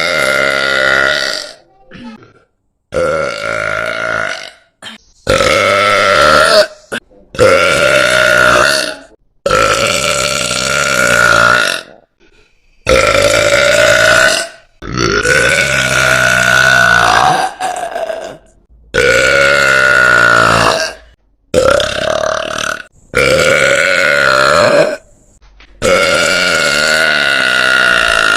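A woman's very loud, long burps, about a dozen in a row. Each lasts one to two and a half seconds, and short silent gaps separate them.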